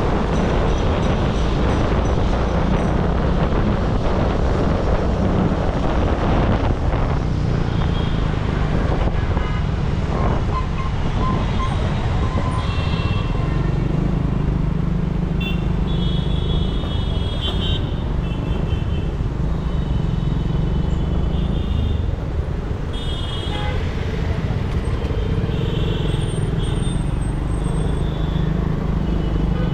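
Heavy city road traffic heard from a two-wheeler in a jam: a steady low rumble of engines and road noise, with vehicle horns tooting in many short, repeated beeps, thickest from about a third of the way in.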